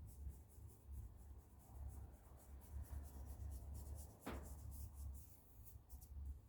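Faint rubbing and scuffing of hands working baguette dough on a floured board, with one sharp tap about four seconds in.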